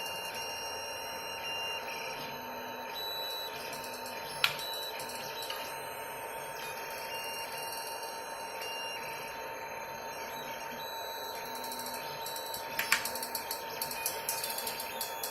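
3D printer running a print: a steady hum, with short notes from the stepper motors that jump in pitch as the head moves. A sharp click comes about four and a half seconds in, and a spell of rattling clicks near the end.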